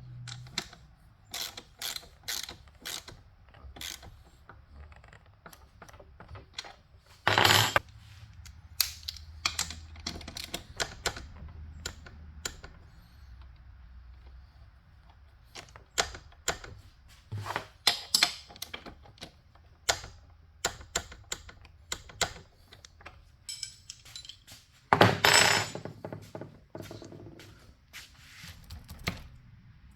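Ratchet wrench clicking in short runs, tightening a Yamaha TT-R125 dirt bike's rear axle back up after a chain adjustment. Two louder bursts of clicking come about 7 and 25 seconds in.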